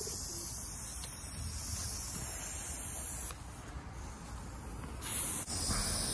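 Aerosol spray-paint can hissing as paint is sprayed onto a concrete wall: one long burst of about three seconds, a short pause, then more spraying near the end.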